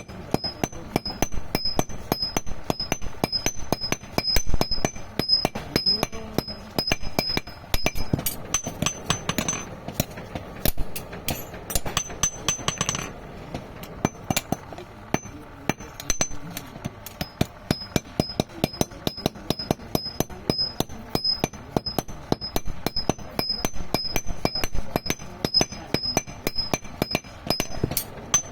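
Hand hammers striking hot iron on an anvil in a fast, steady rhythm of many blows, with a high ring on many strikes, as iron nails are forged by hand.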